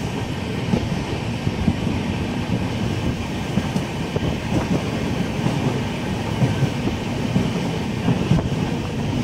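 Passenger train running along the track, heard from inside a carriage: a steady rumble of the wheels with frequent light knocks.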